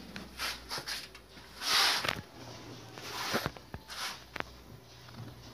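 Round metal baking tin scraping and knocking on a metal oven rack as it is slid in. There are several short scrapes, the loudest about two seconds in, with a few sharp clicks between them.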